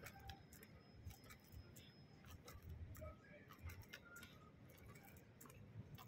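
Near silence: faint room tone with scattered light clicks and ticks.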